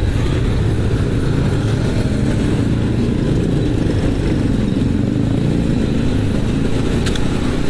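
Motorcycle engine running at low road speed, heard from the rider's seat along with road noise, its pitch wavering slightly up and down.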